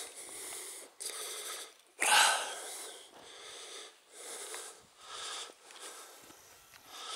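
Heavy, wheezy breathing close to the microphone, one breath about every second.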